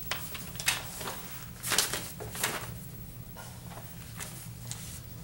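Quiet pause in a small room: a steady low hum with a few short, soft rustling noises.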